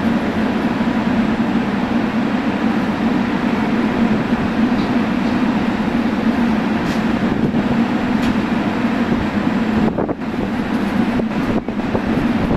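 JR Kyushu 883 series electric train standing at the platform, its onboard equipment running with a steady hum. From about ten seconds in, wind buffets the microphone unevenly.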